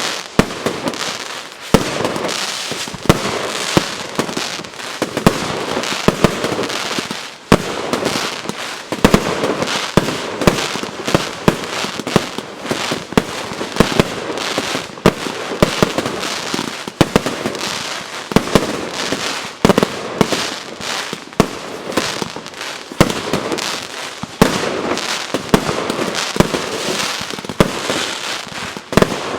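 J-Fireworks JF5441 'Black out eight' firework battery (a 3.8 kg NEM cake) firing without a break: a rapid run of sharp bangs over steady crackling.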